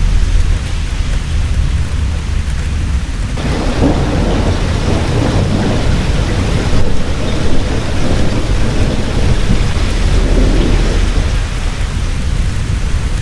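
Heavy rain with thunder rumbling. The storm sound swells abruptly about three seconds in and eases off near the end.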